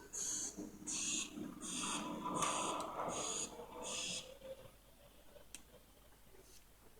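Rhythmic panting: six short breathy puffs, about one every three-quarters of a second, stopping about four seconds in.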